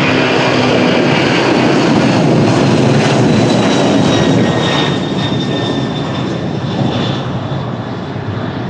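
Airbus A300-600F cargo jet's twin Pratt & Whitney PW4158 turbofans at takeoff power: a loud rumble with a high steady whine on top. It fades from about five seconds in as the aircraft moves away.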